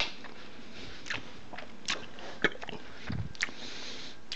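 Someone chewing juicy watermelon: a few scattered wet mouth clicks and smacks, with one dull low thump about three seconds in.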